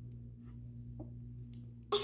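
Quiet room with a steady low hum and a faint tick about halfway, then a young girl bursts into loud laughter right at the end.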